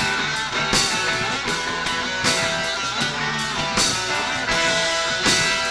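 Rock band playing: electric guitar over bass and drums in a psychedelic rock jam, with a loud accent about every second and a half.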